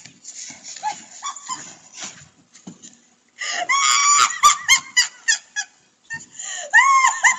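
A woman laughing hard in rapid, hooting bursts, starting about three and a half seconds in and again near the end.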